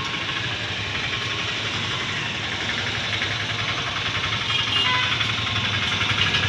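An engine running steadily, slowly growing louder.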